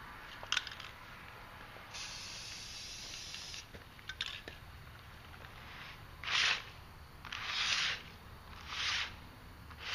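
Aerosol spray paint can hissing: one longer spray about two seconds in, then three short bursts in the second half, with a few light clicks between.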